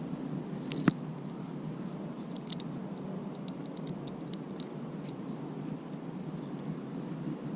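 Steady outdoor rushing noise of wind and moving water, with faint scattered ticks and one sharp click about a second in.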